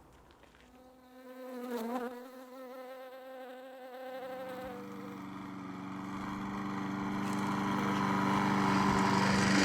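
An insect-like buzz with a wavering pitch, dipping briefly about two seconds in. From about four seconds in it gives way to a lower, steady droning hum that grows steadily louder.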